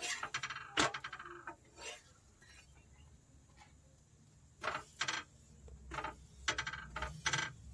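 Metal spatula clicking and scraping against an iron tawa as a roti is turned and lifted off. There are a few sharp clicks near the start, a pause, then a quick run of knocks in the second half.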